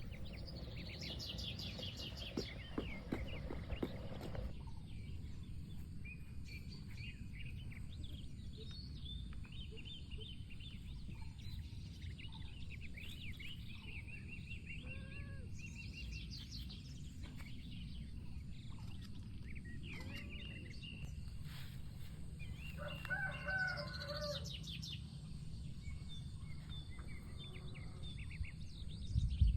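A rooster crowing once, about two-thirds of the way in, over scattered small-bird chirps and a steady low rumble.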